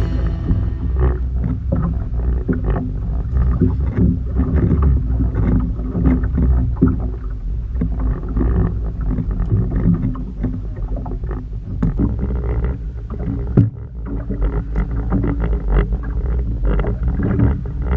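Small boat on the water: a steady low rumble with frequent knocks and slaps of water against the hull.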